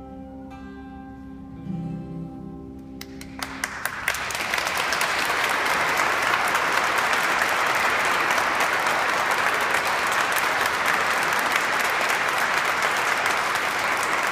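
An acoustic guitar's last notes ring out and fade, with one more plucked note about two seconds in. Scattered claps start near three seconds in and quickly swell into steady audience applause.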